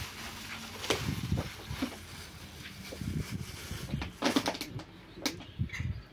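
Plastic bag crinkling and rustling in short irregular bursts as it is handled, with soft low handling bumps; the loudest crackles come in a cluster about four seconds in.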